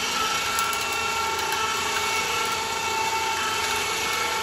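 Electric winch motor running steadily as it reels its line back in, with a steady whine over the motor noise.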